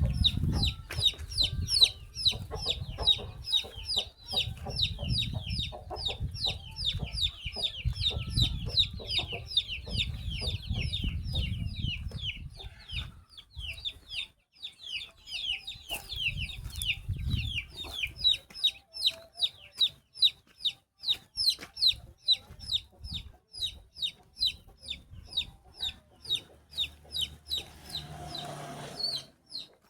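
Baby chick peeping constantly: a rapid string of short, high-pitched falling peeps, several a second. A low rumble sits under the peeps in the first half.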